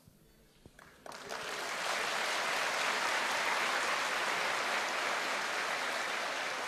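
Audience applause that starts about a second in, builds quickly and holds steady.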